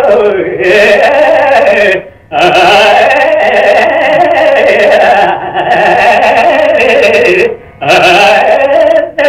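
Carnatic vocal music: a singer holds long, wavering melodic phrases, with two brief pauses, one about two seconds in and one near the end.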